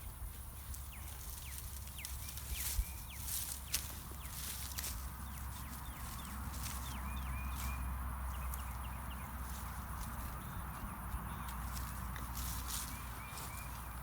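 Potato fork working garden soil: sharp knocks and scrapes, most of them in the first four seconds, over a steady low rumble and faint small chirps.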